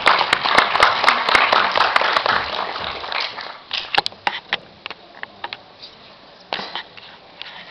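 Audience applauding: dense clapping that thins out over about three seconds to a few scattered claps.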